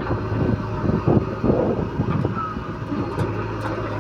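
Heavy diesel engine of a backhoe loader or tractor running with a steady low hum, with irregular louder surges over it.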